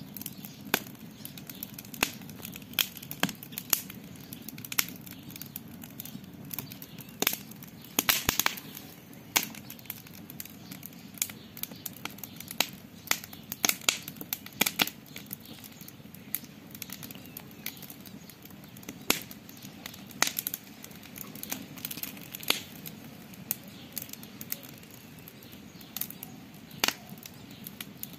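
Campfire crackling: wood popping and snapping in irregular sharp cracks, with a quick run of pops about eight seconds in, over a steady low rush.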